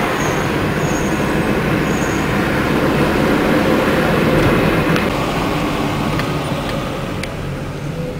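Steady road and engine noise of a car driving through city traffic, heard from inside the car.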